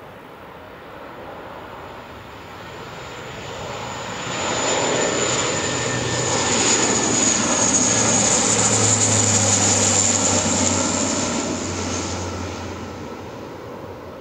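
Lockheed MC-130J Commando II's four Rolls-Royce AE 2100 turboprops on landing approach, growing louder as it passes low overhead and fading away near the end. A steady high whine rides over a low steady hum at the loudest point.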